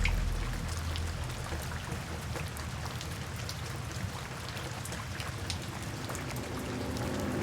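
Steady rain with many individual drops ticking sharply. Soft background music fades out in the first second and begins to swell back in near the end.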